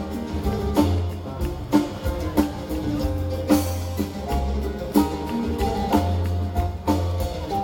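Live band playing amplified music on an outdoor stage, with a drum kit beating steadily over strong low bass notes.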